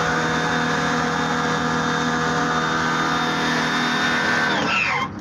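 Motor-driven pump running steadily with a hum and whine, filling the test area with water for the flood simulation. It stops suddenly near the end.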